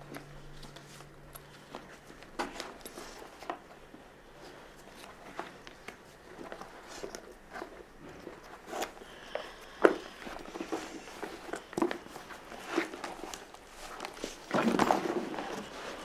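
Hands rummaging in a leather bag: scattered clicks, taps and rustles of leather and contents being shifted, with a louder spell of rustling and handling about a second and a half before the end as a mandarin is taken out.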